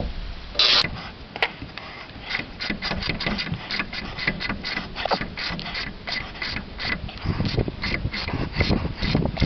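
Hand ratchet wrench clicking in a quick, fairly even run, about three to four clicks a second, as a nut on a sway bar link is worked loose.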